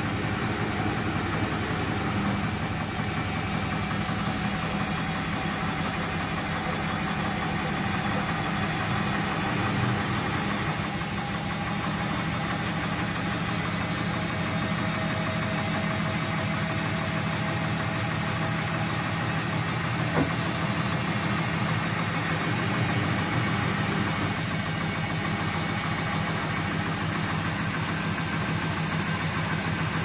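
Front-loading washing machine in its spin cycle: the steady hum of the motor and turning drum, running smoothly without fault.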